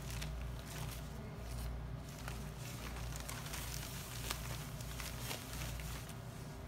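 Sterile drape rustling as gloved hands unfold it and smooth it over the shoulder, in short scattered crackles over a steady low hum.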